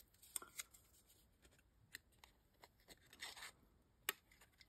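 Near silence with faint handling of a kraft paper strip against a hand-held paper punch: light ticks, a brief papery rustle about three seconds in, and a single sharp click about a second later.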